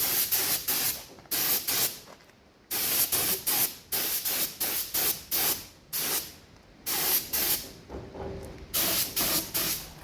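Paint spray gun hissing in short bursts as the trigger is pulled again and again, laying paint on a motorcycle frame, with a few brief pauses between runs of strokes.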